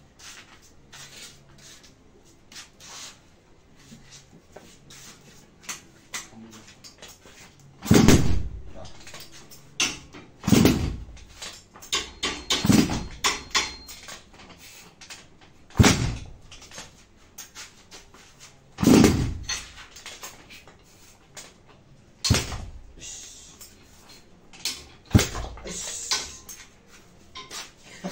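A 400cc two-stroke engine being kick-started again and again: about seven kicks, one every few seconds, each a brief burst of the engine turning over. It does not catch and run.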